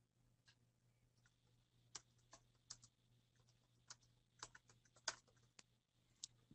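Faint typing on a computer keyboard: a dozen or so uneven keystrokes as a short phrase is typed.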